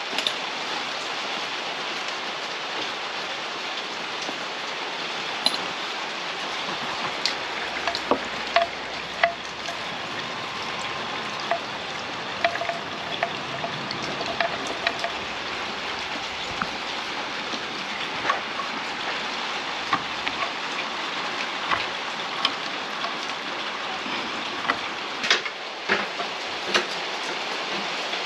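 Steady even hiss with many small, sharp clicks and taps scattered through it: hand tools and the parts of a light fitting being handled.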